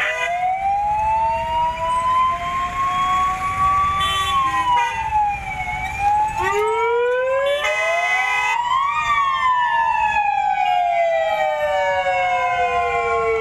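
Several vehicle sirens wailing at once, their pitches rising and falling out of step with each other, with short fast-pulsing bursts about four and eight seconds in.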